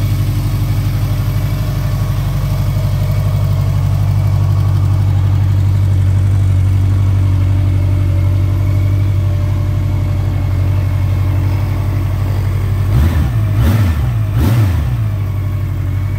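Honda CB1100's air-cooled inline-four engine idling steadily. Near the end the throttle is blipped twice in quick succession, and the revs rise and fall back to idle each time.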